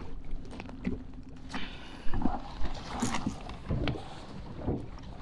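Irregular knocks, thumps and clatter of a freshly netted fish and gear being handled in a small fishing boat. A faint steady hum in the background stops about a second and a half in, just before the knocking starts.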